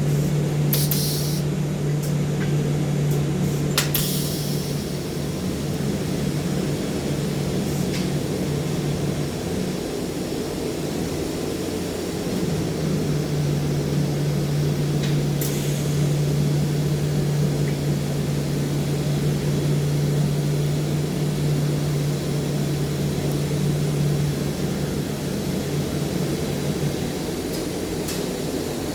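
Arc welding in a pipe-welding shop: a steady electric hum under an even hiss. The hum cuts out for a few seconds about ten seconds in, returns, and stops again near the end, with a few sharp clicks along the way.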